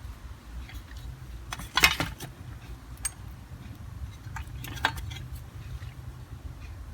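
Small metal sockets and hand tools clinking against each other and a hard surface as they are handled. There are a few separate clinks, the loudest about two seconds in.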